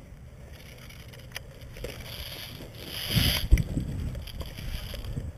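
Rustling of clothing and gear, with footsteps crunching on dry twigs and leaf litter. It is loudest a little past the middle, where a few dull thumps land.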